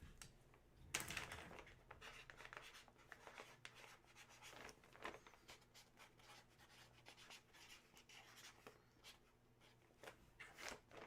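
Near silence with faint scratching and rustling of hands handling items and packaging, a slightly louder scrape about a second in.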